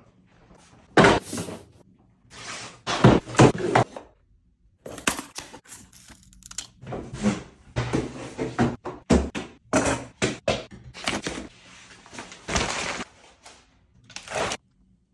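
Cardboard packaging of a new computer display being opened and handled: a series of knocks, thunks and short scraping and rustling sounds with brief pauses between them.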